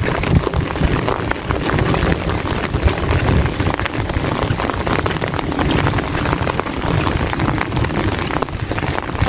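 Heavy rain falling steadily, a dense patter of many drops over a fluctuating low rumble of wind on the microphone.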